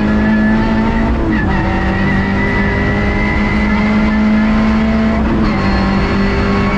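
Rally car engine heard from inside the cabin, running hard at a steady high pitch, with brief breaks in the note about a second in and again past five seconds at gear changes.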